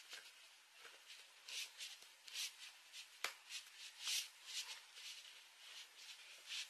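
Small hand pick scraping and chipping at a plaster dig block: faint, irregular short scratchy strokes, roughly two a second, with one sharp click about three seconds in.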